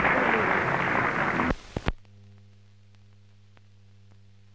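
Old newsreel optical soundtrack. A loud, noisy passage cuts off abruptly about a second and a half in, with a couple of sharp clicks. What follows is a faint steady hum with light crackle and one more click at the end.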